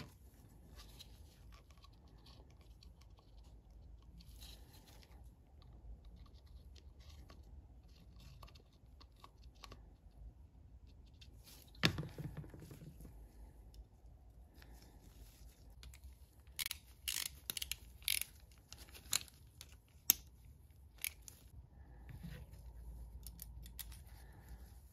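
Small metal parts of a bicycle rear derailleur handled with gloved hands during greasing and reassembly: faint rustling and light clicks, with one sharp click about halfway through and a quick run of sharper clicks a few seconds later.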